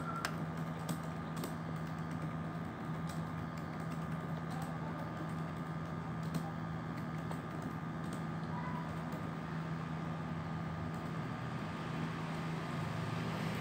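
Steady low room hum with a few steady tones in it, dotted with faint, scattered clicks.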